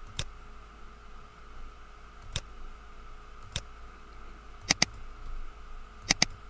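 Computer mouse button clicks: three single clicks spread out, then two quick double-clicks, one near the middle and one near the end, over a faint steady background hum.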